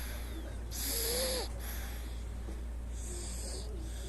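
A sleeping baby snoring: a hissy breath about a second in with a faint rising-and-falling tone through it, and a fainter, wavering breath near the end, over a steady low hum.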